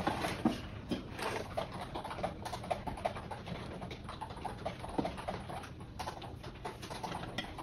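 Quick, irregular light clicking of a computer keyboard being typed on in the background, with a few louder knocks and clinks from furniture hardware being handled, one near the start.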